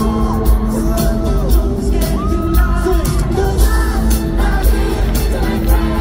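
Loud amplified live pop music with a heavy bass and a steady drum beat, a lead singer's voice gliding over it, recorded from the concert audience.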